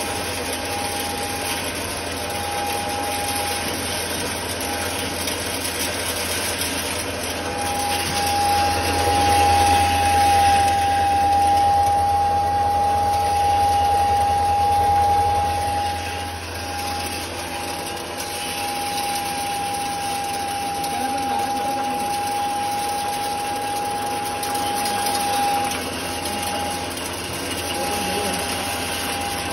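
3 HP belt-driven maize grinder with a cyclone running steadily while grinding maize into meal: a continuous mechanical whine over a low hum, louder for several seconds in the middle.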